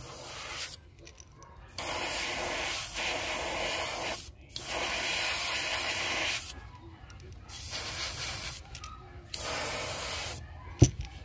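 Airbrush spraying paint in four bursts of hiss, each a second or two long, with short pauses between trigger pulls. A sharp click comes near the end.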